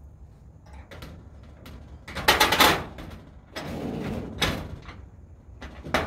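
Metal shed door and its hasp hardware being handled by hand: a few light clicks, then two noisy scrapes about two and three and a half seconds in, the second one longer.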